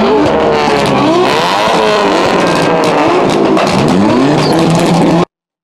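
Car engines revving over and over, the pitch sweeping up and dropping back in quick, overlapping runs. The sound cuts off abruptly about five seconds in.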